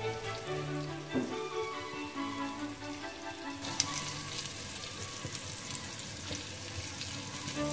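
Flour-coated chicken meatballs sizzling in hot oil in a frying pan. The sizzle grows louder and more crackly about halfway through, and background music plays over the first half.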